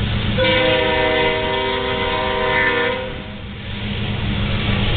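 A train horn sounds one long chord blast of about two and a half seconds, starting just after the beginning. Under it is the steady low rumble of freight train hopper cars rolling past.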